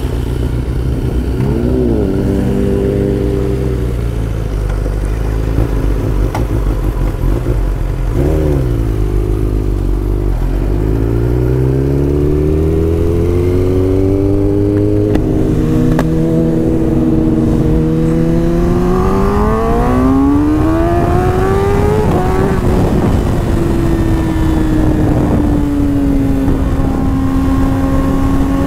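Kawasaki ZX-10R's inline-four engine, heard from the rider's seat: two short revs near the start, then the bike pulls away and accelerates in long rising sweeps of pitch. It settles into a steadier cruise for the last few seconds.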